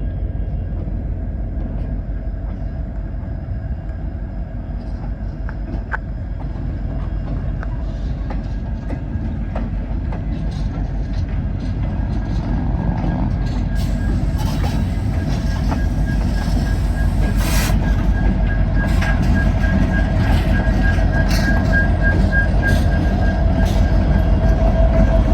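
Two EMD SD70MAC diesel-electric freight locomotives running, growing steadily louder, a heavy rumble with a steady whine that strengthens through the second half and a scatter of sharp clicks.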